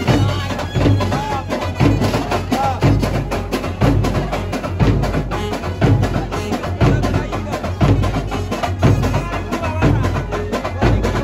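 Indian procession brass band playing: a deep bass drum beating about once a second under fast, sharp drum strikes, with a wavering saxophone melody over the top.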